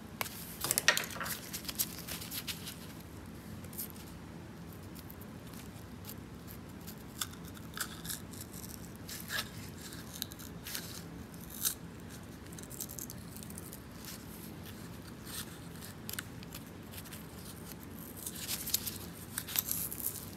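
Light clicks and scrapes of small tools against the small metal parts of a fuel pump being taken apart by hand, with a busier patch about a second in and again near the end.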